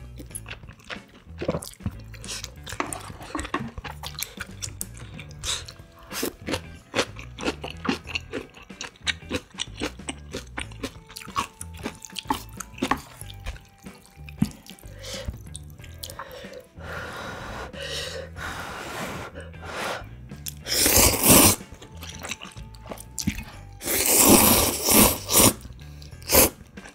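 Eating sounds of spicy ramyun with rice cake and dumplings: chopsticks and a wooden spoon clicking against a metal pot, chewing, and sips of broth, with three loud slurps of noodles in the last third. Quiet background music runs underneath.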